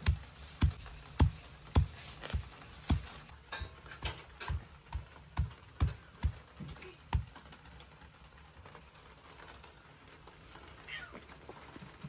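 Stone pestle pounding walnuts in a stone mortar: dull thuds about two a second that stop about seven seconds in, as the nuts are ground to a coarse meal.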